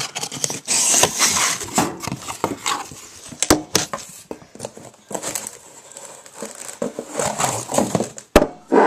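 An old boiler burner and its cardboard box being handled, with rustling and knocking and a few sharp clicks, one about three and a half seconds in and another near the end.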